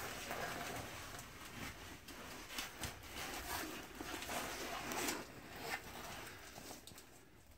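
Someone shuffling through a corrugated steel pipe: clothing rustling and scraping, with scattered light knocks. It dies down about six seconds in.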